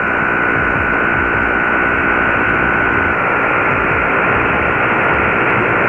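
Shortwave static and hiss from an Icom IC-R8600 receiver tuned to a weak AM broadcast on 15140 kHz, the programme buried in the noise. A steady high whistle rides on the hiss and drops slightly in pitch about three seconds in.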